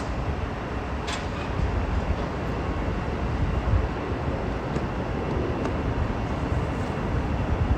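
Caltrain passenger train standing at the platform, running with a steady low rumble, with wind on the microphone. Two short clicks: one at the start, one about a second in.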